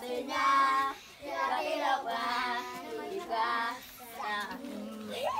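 A group of children singing an action song together, in short phrases with brief pauses between them.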